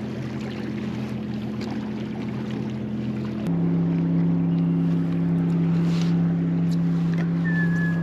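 Boat motor humming steadily, then stepping up abruptly to a higher, louder pitch about three and a half seconds in. A brief high whistled tone sounds near the end.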